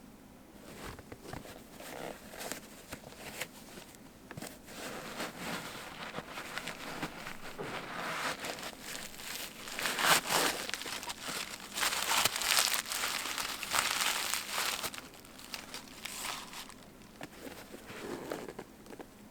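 Paper packing from a sneaker box crinkling and crumpling as it is handled, in an uneven run of rustles that is loudest about halfway through and stays loud for a few seconds after.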